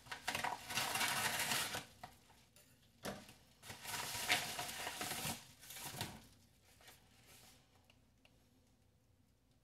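Kraft paper mailer envelope being torn open and handled: two long stretches of paper rustling and tearing, then quieter, with a few light ticks as the small cardboard box is taken out.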